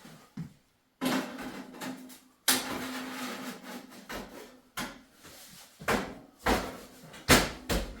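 A heavy fireplace being shifted and nudged into position: scraping along the floor and several sharp knocks, the loudest about seven seconds in.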